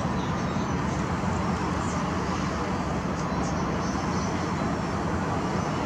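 Steady rumble of distant town traffic, even in level throughout, with a few faint short high chirps about two and three and a half seconds in.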